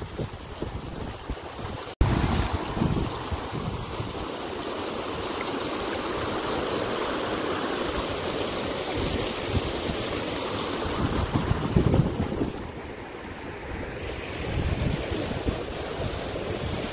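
Shallow stream water rushing steadily over rocky ledges and small cascades, with gusts of wind buffeting the microphone.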